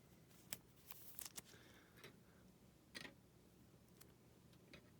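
Faint handling of trading cards: a few soft clicks and light rustles as a card is slipped into a plastic sleeve.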